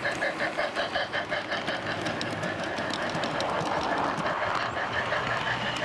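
Large-scale garden railway model train running along the track: a steady rhythmic pulse about five times a second, with the wheels clicking over the rails.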